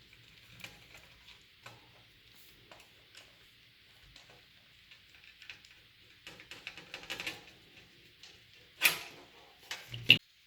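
Scattered light clicks and rattles of computer hardware being handled, with a busier run of clicking about two thirds of the way through and two sharp knocks near the end, the first the loudest.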